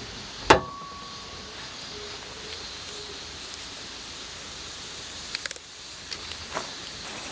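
A single sharp knock about half a second in, with a brief ringing tone after it, then a few small clicks and knocks near the end. Steady outdoor background of insects throughout.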